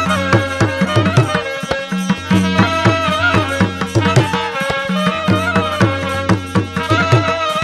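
Instrumental interlude of a Bangla Jhumar folk song: a lead instrument plays a bending melody over a steady bass line and regular hand-drum beats.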